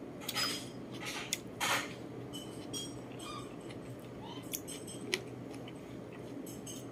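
Close-up mukbang eating sounds: soft chewing and mouth smacks while eating boiled carrot and braised chicken by hand. A few short clicks and smacks, the loudest in the first two seconds and a couple of smaller ones later.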